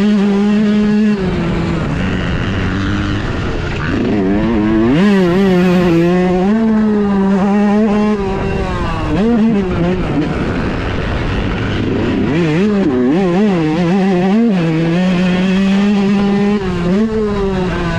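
2018 Yamaha YZ125's 125 cc two-stroke single-cylinder engine being ridden hard. Its pitch drops off and then climbs back up several times as the throttle is shut and reopened through the rev range. The rider reckons the jetting is probably just a tiny bit rich.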